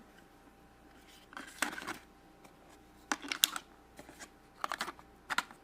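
Small plastic toy accessories being picked up and set down by hand: several short bursts of clicking and rustling with quiet gaps between.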